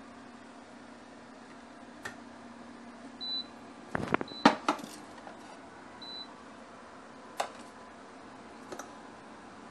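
Kitchenware being handled: scattered clicks and knocks, with a cluster of clattering knocks about four seconds in, the loudest part. Three short high electronic beeps come around them, over a steady low hum.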